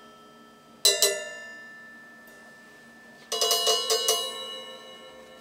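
Drum-kit cymbals struck with sticks: two hits about a second in, then a quick run of five or six hits about three and a half seconds in, each leaving a bell-like metallic ring that fades slowly.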